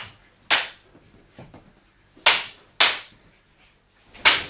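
Sharp hits of eskrima sticks in double-stick sparring: five cracking strikes, two near the start, two more about halfway, and one near the end.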